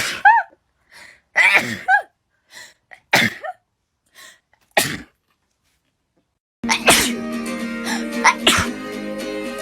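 A person sneezing in a run of short, separate sneezes, four or five loud ones in the first five seconds, each cut off sharply with dead silence between, as if edited together. About two-thirds of the way through, music comes in and runs on, with one or two more sneezes over it.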